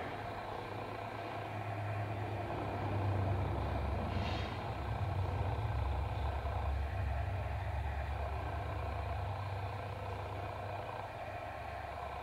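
Low rumble of a heavy vehicle running on the street outside, swelling over the first few seconds and slowly fading away.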